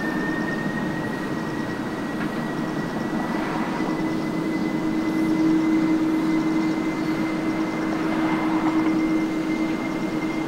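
Boeing 747-400 freighter's jet engines running: a steady low drone under a thin whine that rises slowly in pitch, with a broad rush of engine noise.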